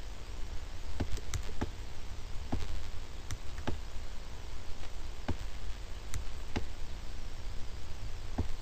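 Computer mouse clicking at irregular intervals, about a dozen short, sharp clicks, over a steady low hum.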